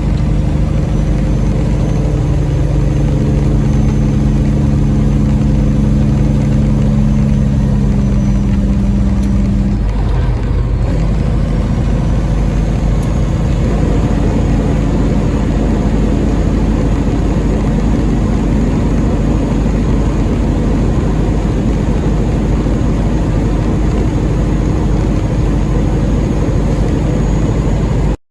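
Semi truck's diesel engine running steadily under way. About ten seconds in its pitch breaks off briefly and settles at a different pitch. The sound cuts off suddenly near the end.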